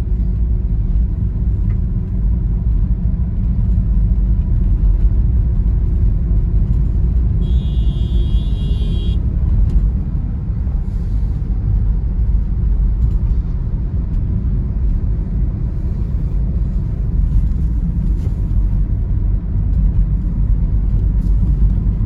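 Car on the move: a steady, loud low rumble of engine and road noise. A brief high-pitched tone sounds about a third of the way in.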